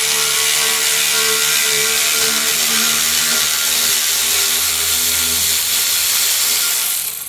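A power tool runs continuously, backing out a heated, rusted exhaust flange bolt, and stops near the end.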